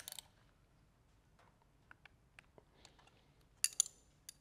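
Steel spanners on an engine tensioner's M8 bolt and nylock nut: a few metal clicks at the start as the nut is given a final firm tightening, faint ticks, then a cluster of sharper ringing metal clinks a little before the end as the spanners come off.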